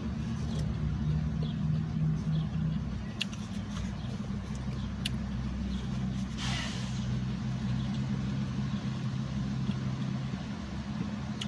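Steady low engine hum, like a car idling, with a brief rush of noise about six and a half seconds in and a few faint clicks.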